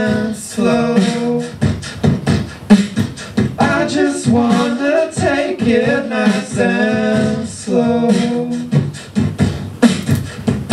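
Beatboxing into a microphone, sharp percussive clicks and beats under wordless sung vocal harmonies, a cappella.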